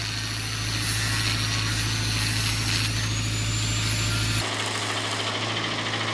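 Angle grinder grinding a steel pipe flange clamped in a vise, its high motor whine shifting under load. A little after four seconds it gives way abruptly to stick (arc) welding on the flange.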